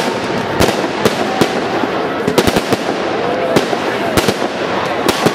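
Fireworks display: irregular sharp bangs of bursting shells, a dozen or so, sometimes two in quick succession.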